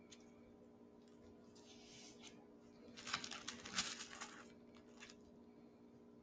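Quiet room tone with a low steady hum, broken about three seconds in by a brief rustling noise with a few small clicks.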